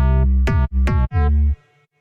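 Electronic background music: heavy bass synth notes with sharp attacks, starting and stopping in a choppy rhythm.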